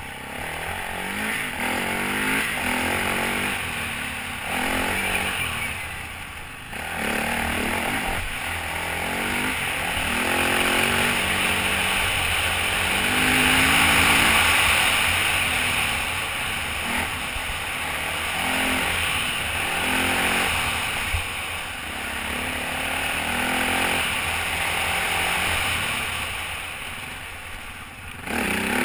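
Off-road motorcycle engine being ridden along a dirt trail, revving up and dropping back again and again as the rider works the throttle and gears, over a steady rushing hiss. It eases off briefly about six seconds in and again near the end.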